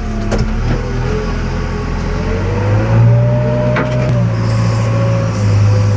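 JCB backhoe loader's diesel engine running steadily under load while digging, with a hydraulic whine that slowly rises and falls in pitch. Two sharp knocks come through, one about half a second in and one near the four-second mark.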